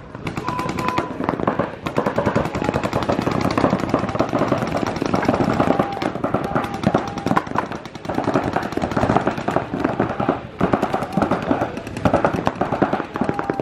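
Paintball markers firing rapid strings of shots, several guns overlapping into a near-continuous crackle.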